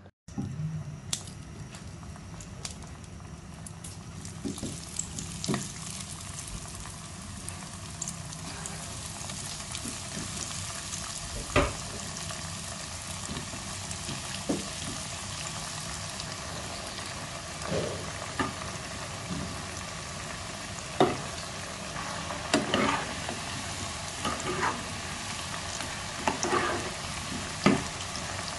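Spice-coated taro root slices deep-frying in hot oil: a steady sizzle. There are occasional sharp knocks as pieces are dropped in and stirred with a spoon in the pan.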